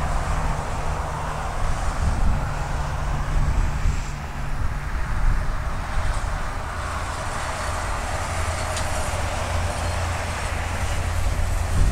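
Jet aircraft engines across an airfield: a steady rumble and hiss.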